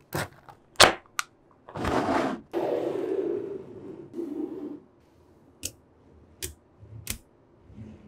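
Slabs of small metal magnetic balls snapping together with sharp clicks, three near the start and three more in the second half. In between, a longer rattling scrape of the balls lasting about three seconds.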